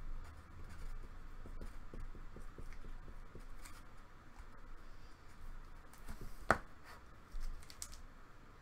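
Hands handling trading cards and plastic card holders: light rubbing and small scattered ticks, with one sharp click about two-thirds of the way through.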